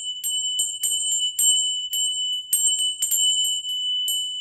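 A small high-pitched bell rung in an uneven run of strikes, about three a second. Its single clear tone rings on after the last strike near the end.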